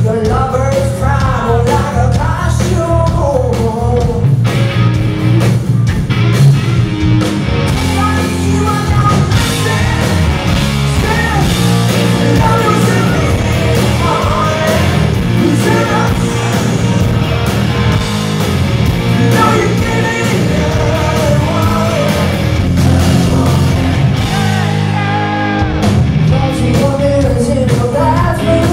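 Live rock band playing loudly: a woman singing lead over electric guitars, bass and drums, heard as an audience recording from the floor.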